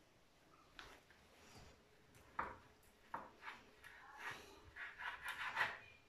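Chef's knife slicing through a chorizo sausage, the blade knocking softly on a plastic cutting board with each cut: a string of about ten quiet knocks, quickening towards the end.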